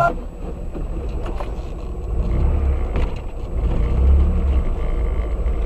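Car cabin noise picked up by a dashcam microphone: a steady low engine and road rumble that swells a couple of times, with a few faint ticks and a thin high whine.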